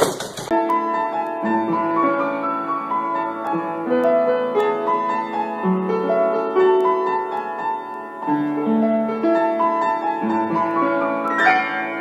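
Piano music: a gentle melody of sustained notes over low chords.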